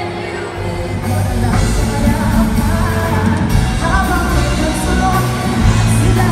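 Live music amplified in a large hall: a choir singing, then a rock band with drums, electric guitars and a lead singer.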